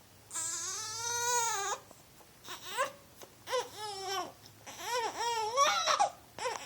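A young child crying and whining on waking: one long cry about half a second in, then a run of shorter wails that rise and fall in pitch.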